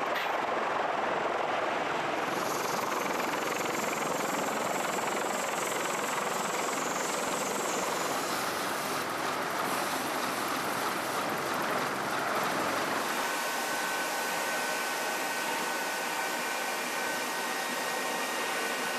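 Steady rushing noise of aircraft engines running on a carrier flight deck, with a faint high whine joining in about two-thirds of the way through.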